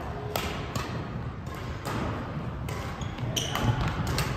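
Badminton rally: rackets striking the shuttlecock in a string of sharp hits, roughly every half second to a second, each ringing on in a large echoing sports hall.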